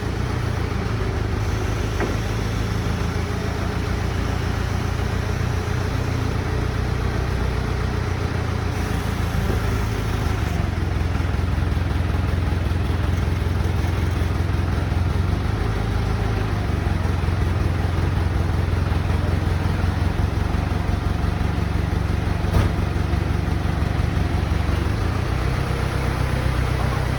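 A motor or engine running steadily with a low drone, and a single knock about three-quarters of the way through.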